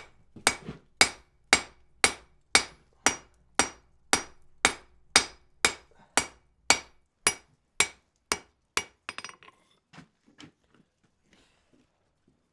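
Blacksmith's hammer striking iron on an anvil in a steady forging rhythm, about two blows a second, some eighteen in all, stopping about nine seconds in. A few lighter taps and clinks follow.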